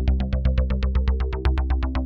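Access Virus TI–style synthesizer patch played through the OsTirus emulation plugin: a fast arpeggiated sequence of short plucked notes, about eight a second, over a held bass note that changes about one and a half seconds in.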